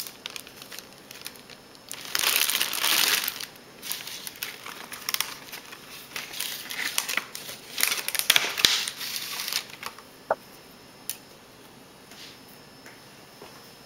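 Clear plastic strawberry clamshell and a plastic produce bag crinkling as they are handled. The crinkling comes in several bursts over the first ten seconds, then dies down to a couple of light clicks.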